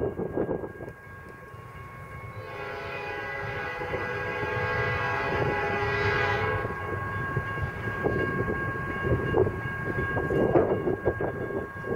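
Locomotive air horn sounding one long blast of about four seconds, a chord of several notes, over the rising rumble of the approaching freight train.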